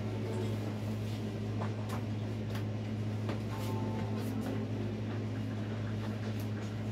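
A steady low hum runs through, with scattered light knocks and clatter as things are handled and wiped around the stove and counter.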